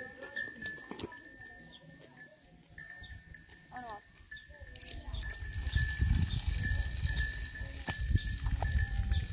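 Livestock bleating a couple of times, with a faint steady high tone throughout and a low rumble building from about five seconds in.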